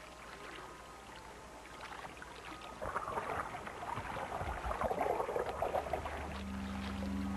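Documentary sound design: a watery, gurgling swell that grows louder about three seconds in, joined near the end by low held music tones.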